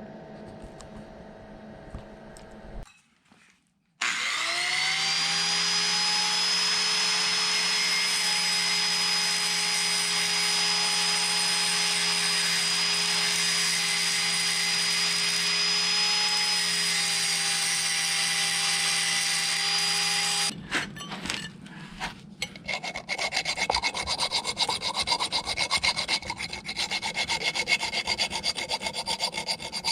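An electric power tool's motor spins up about four seconds in and runs steadily with a high whine, then stops; a rough, rapid rasping scrape follows, metal being worked down on the welded-up compensator.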